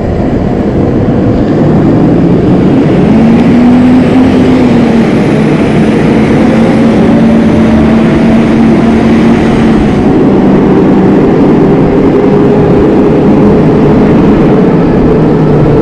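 Wind rushing over a body-mounted action camera's microphone while riding an electric bike, with a steady low hum that rises a little in pitch about three seconds in and then holds.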